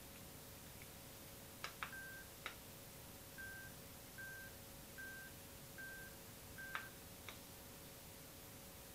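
Bluetooth over-ear headphones giving six short, faint beeps at one pitch, about one every 0.8 s, each marking a step up in volume as the volume button on the ear cup is pressed. Soft clicks of the ear-cup buttons come between the first beeps and near the end.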